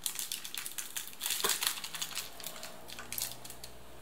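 Plastic instant-coffee sachet crinkling as it is squeezed and emptied over a mug: a quick run of crackles, loudest about a second and a half in, that dies away after about two seconds.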